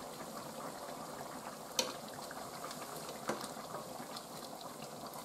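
A pot of curry simmering with a steady bubbling while a metal ladle stirs it; the ladle knocks lightly against the pot twice, about two and three seconds in.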